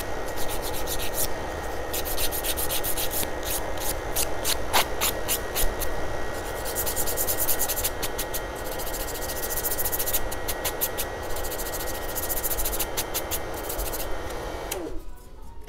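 Hand nail file rasping across fingernails in runs of quick strokes, over the steady whir of a nail dust collector's fan. Near the end the dust collector is switched off and its fan winds down.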